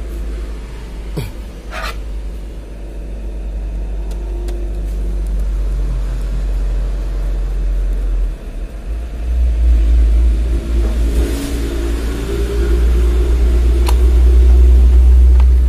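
Two sharp clicks about a second apart as a photocopier's plastic covers are snapped shut, over a low steady rumble that grows louder about nine seconds in.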